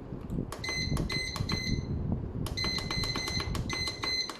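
Noxxa electric pressure cooker's control panel beeping with each button press as the cooking time is set. A few short beeps come about half a second in, then a quick run of beeps, several a second, from about halfway.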